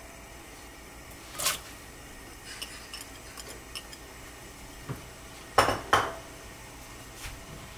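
Metal kitchen utensils clinking against pots and dishes: a sharp clink about one and a half seconds in and a louder pair near six seconds, with a few light taps between.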